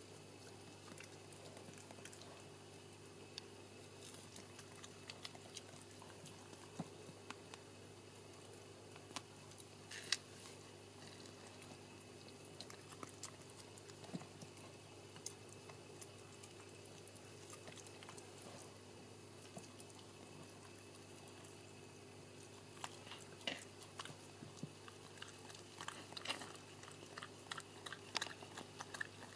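Mother Sheltie licking and nibbling at a newborn puppy, clearing away its birth membranes: faint wet smacking and clicking mouth sounds, coming more often near the end.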